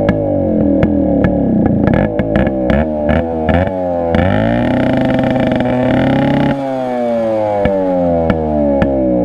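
Yamaha RX135's two-stroke single-cylinder engine revved repeatedly in neutral with the silencer's core (baffle) removed, giving a raw open-exhaust sound. Quick blips of the throttle with sharp popping as the revs fall, then a held higher rev for a couple of seconds about midway, dropping back to more blips.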